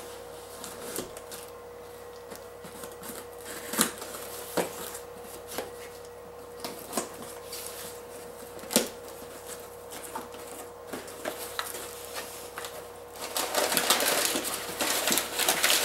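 Knife blade cutting the packing tape on a cardboard box, with scattered scrapes and taps. About thirteen seconds in, the cardboard flaps are pulled open and packing paper rustles loudly.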